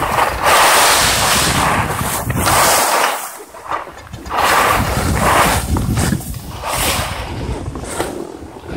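Wind rushing over the microphone of a camera carried by a moving skier, mixed with skis scraping over packed groomed snow. The noise swells and fades with the turns, dropping briefly about three seconds in.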